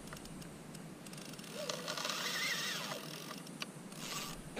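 Faint clicking of a spinning reel and rod being worked against a fish hooked on a vertical jig, with a faint whine that rises and falls about halfway through.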